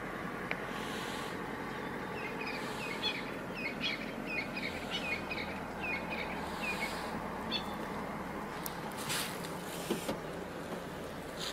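A string of short, high chirping calls, several a second for a few seconds, over a steady low rumble, with a few brief rustling bursts near the end.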